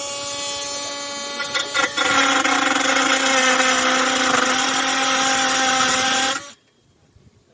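Oscillating multi-tool running with a steady high whine, turning louder and harsher about two seconds in, then switched off suddenly near the end.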